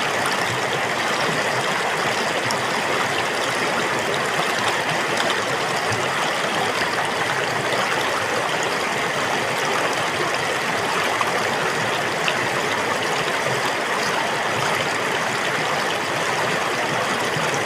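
Water flowing steadily, an even splashing hiss that does not change.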